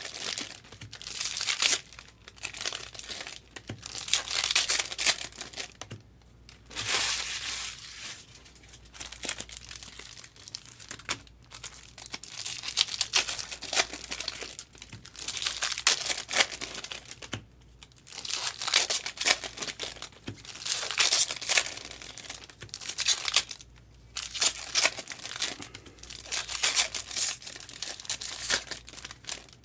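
Foil wrappers of Bowman baseball card packs being torn open and crinkled, in repeated bursts of rustling a second or two apart with short pauses between.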